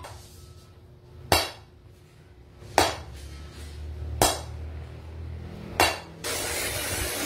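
Hammer blows forging a red-hot steel round bar on a steel block: four sharp metallic strikes about a second and a half apart, each with a short ring. Near the end a steady rushing noise starts abruptly.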